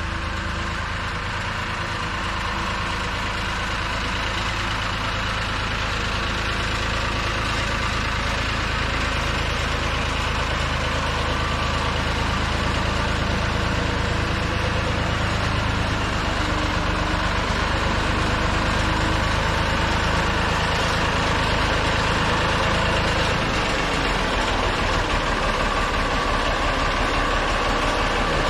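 Ford 4500 tractor's engine running steadily, its level creeping up slightly, with a shift in its low note about three-quarters of the way through.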